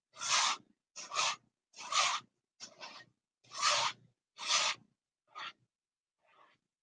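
Gloved hand wiping and rubbing across the surface of a painted canvas, in about eight short rasping strokes that grow fainter near the end.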